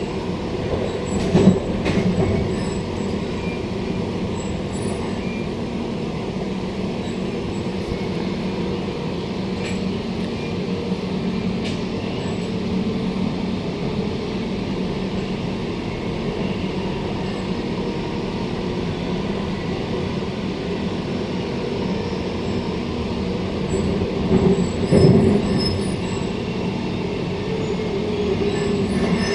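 Queensland Rail SMU 260 suburban electric multiple unit running along the line, heard from inside the passenger car: a steady rumble and hum of the moving train. A couple of louder bumps come through, one about a second and a half in and another near the end.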